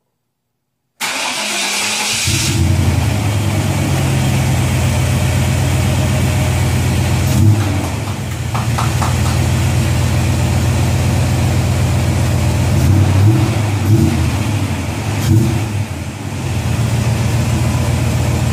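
A 1999 GMC Yukon's gasoline V8 starts about a second in and settles into a steady idle, heard at the tailpipe through new Gibson stainless headers and a MagnaFlow exhaust. Its low exhaust note rises briefly with a few light throttle blips, around the middle and again near the end.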